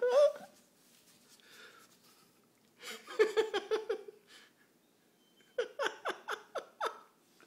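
A person laughing in two bursts of quick, repeated 'ha-ha' pulses, the first about three seconds in and the second, with each pulse falling in pitch, about six seconds in.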